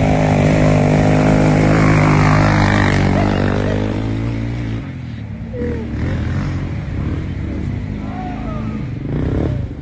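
ATV engine running at steady revs as it pulls away, loud at first and dropping away about five seconds in as the quad gets distant; fainter revving follows near the end.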